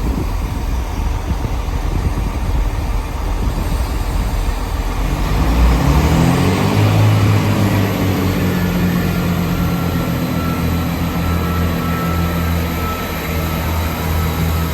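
Class 166 diesel multiple unit pulling away from the platform: its diesel engines rise in pitch about five seconds in as the train accelerates, then run steadily at the higher note.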